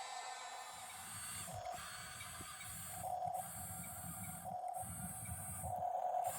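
Huina RC bulldozer's electric drive motors and gearboxes whining, swelling louder about every second and a half.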